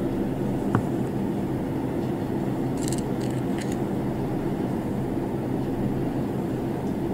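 Steady low background hum and rumble, with one small click about a second in and a few faint light ticks around three seconds in.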